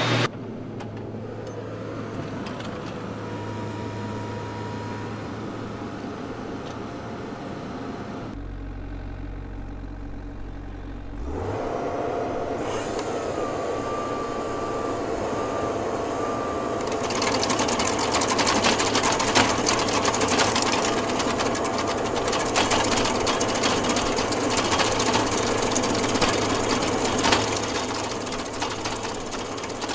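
Small stump grinder's engine running and speeding up, then its toothed cutter wheel grinding into a wooden stump, louder from about halfway on, with a fast rattle of teeth against wood.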